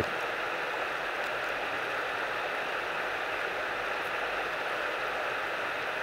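Steady, even rushing noise of flowing water, with no bird call or other sound standing out.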